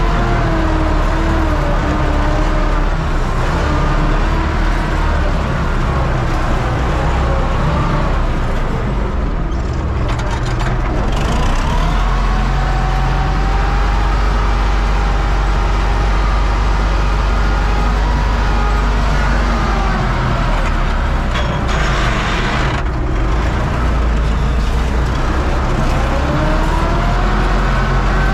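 UTB U650 tractor's diesel engine running steadily under load, pulling a seed drill, with its pitch drifting up and down a little. A short hiss comes about three-quarters of the way through.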